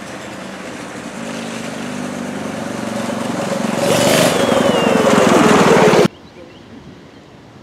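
Go-kart's small engine coming closer and growing louder, passing close by about four seconds in with its pitch dropping as it goes past. The sound cuts off suddenly about six seconds in.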